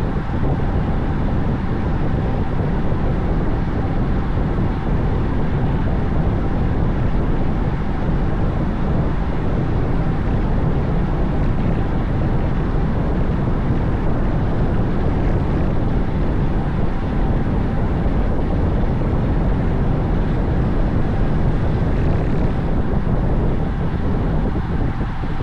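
Steady wind rush and road noise on the microphone of a camera riding along on a moving bicycle.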